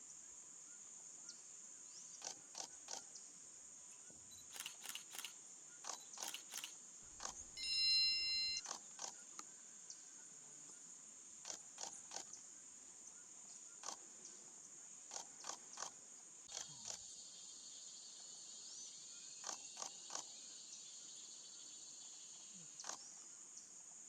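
Steady high-pitched drone of insects such as cicadas or crickets, with clusters of short sharp clicks throughout. A louder burst of noise carrying a few brief tones comes about seven seconds in.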